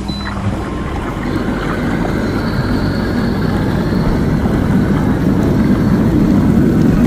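Inflatable hot tub's bubble jets running: a steady blower hum under churning, bubbling water, growing steadily louder.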